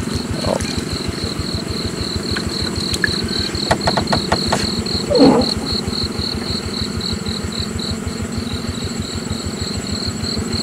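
Night insects chirping in a steady, rapid pulsing trill, over the low, even throb of a small engine idling. A few quick clicks come around four seconds in, then a short voice-like sound.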